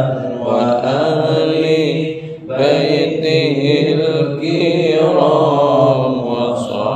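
Mosque congregation chanting salawat (sung Arabic praises of the Prophet) together in a slow, drawn-out melody, with a brief breath pause about two and a half seconds in.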